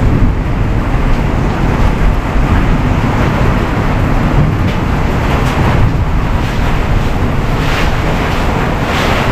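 Heavy rain pouring down steadily on the patio. A few swishes of a broom pushing floodwater across the wet floor come in the second half.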